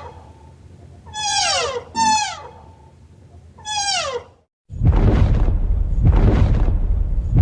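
An animal calling: three short calls that fall in pitch, the first two close together and the third a second and a half later. About four and a half seconds in they cut off and a louder, rough, noisy animal sound takes over in pulses about once a second.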